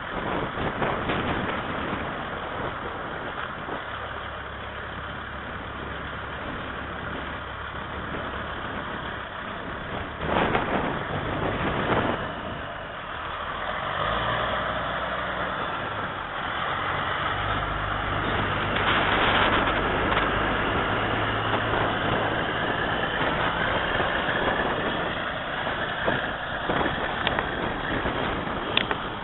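Semi truck's Caterpillar 3406 inline-six turbo diesel running, its pitch shifting several times and climbing slowly in the second half. Two short bursts of noise come about ten and twelve seconds in.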